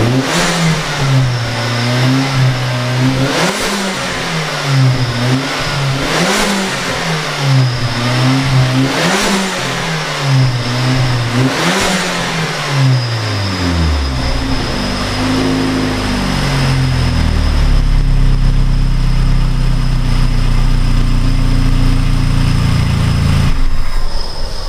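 Freshly built, turbocharged Mazda 3 MZR 2.3 four-cylinder engine running. Its speed swells up and drops back about every three seconds, with a short burst of noise at each swell. After about fourteen seconds it settles into a steady idle.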